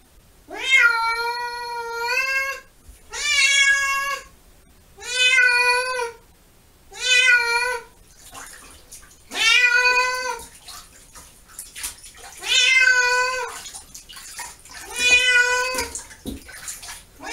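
A cat meowing loudly over and over in distress at being bathed: seven long, drawn-out meows, each rising at the start and then held, about two seconds apart, with another beginning at the very end.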